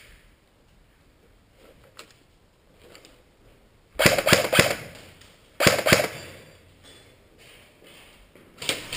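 Airsoft gun firing: a quick string of sharp shots about four seconds in, then a shorter string about a second and a half later.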